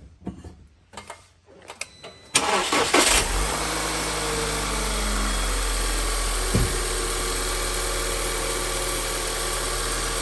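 Car engine cranking and catching about two seconds in, after a few faint clicks, then settling into a steady idle.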